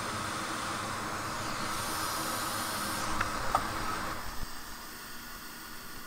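Steady hiss with a faint low hum underneath, during desoldering at the bench, dropping to a quieter level about four seconds in.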